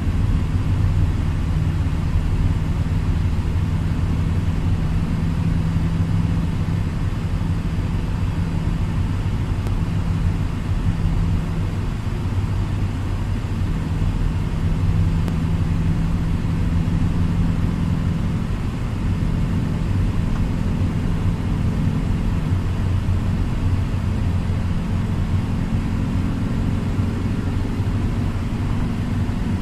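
Car cabin noise at highway cruising speed: a steady low rumble of engine and tyres on the road, heard from inside the car.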